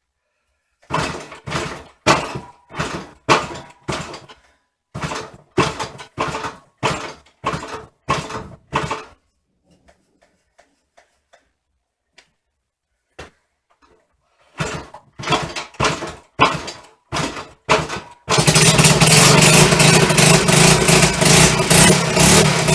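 1974 Honda XR75's small four-stroke single being kick-started, choke off, in two runs of repeated strokes about two a second with a pause between. About eighteen seconds in it catches and runs loudly and steadily: the engine's first start after a two-year restoration.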